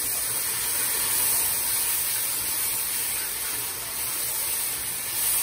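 Water hissing and sizzling on hot oil and sautéed onion, pimento and tomato in a wide aluminium pot, a steady spitting hiss as it comes to the boil.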